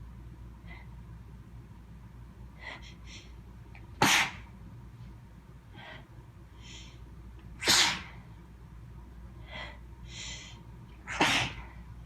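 A person's sneezing fit: three loud sneezes about three and a half seconds apart, with short, faint breaths drawn in between them as each sneeze builds.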